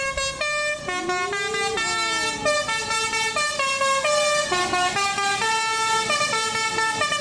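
A bus's telolet basuri musical horn playing a melody of held, stepped notes, several sounding together, with some notes sliding in pitch.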